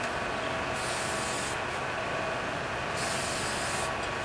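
Two hissing spray bursts of paint thinner, each just under a second long, about a second in and again two seconds later. The solvent is sprayed onto a part to clean off oil before painting.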